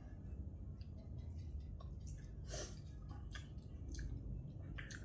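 Close-up chewing and wet mouth sounds of someone eating spicy glass noodle salad, with scattered soft smacks and clicks.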